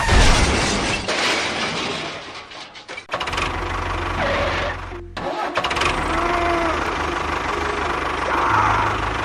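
An engine running steadily, broken by several abrupt cuts where the sound drops out and restarts.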